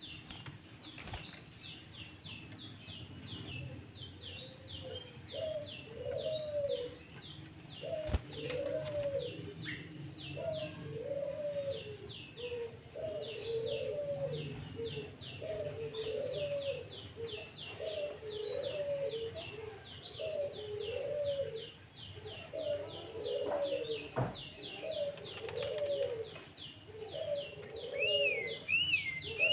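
Layered birdsong: a low cooing phrase repeated about once a second under a constant run of rapid, high chirps. Near the end, clearer arching whistled notes join in.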